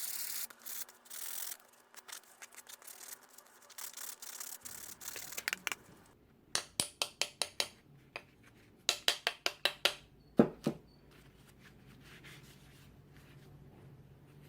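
Rubbing and scraping hand strokes on a small piece of azalea wood. A steady rub at first gives way to scattered scratchy strokes, then two quick runs of sharp strokes at about five a second. The strokes stop a little past ten seconds, leaving a faint low hum.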